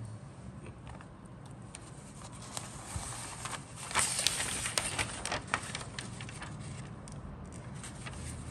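Paper instruction sheet rustling and crackling as it is handled, turned over and unfolded, with scattered crisp clicks and a denser crackle about halfway through.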